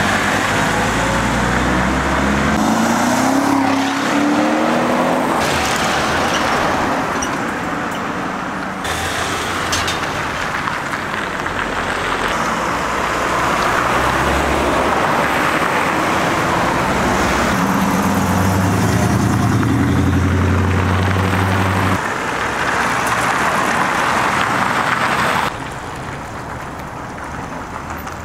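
Road traffic: cars and tow vehicles driving past one after another, engines running, with sudden changes where the sound cuts between passes. About three seconds in, an engine rises in pitch as it accelerates, and later a deep engine note is heard for a few seconds.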